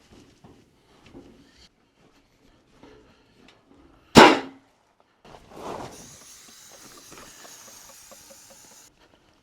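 A few faint clicks, then one loud sharp bang about four seconds in, followed after a moment by a steady hiss for about three and a half seconds that cuts off suddenly.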